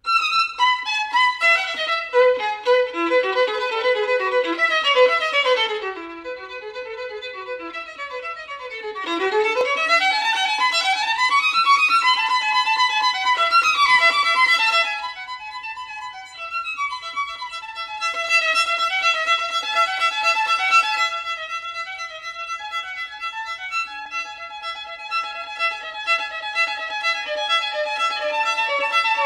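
Background music led by a violin, playing quick runs up and down the scale and then longer held notes.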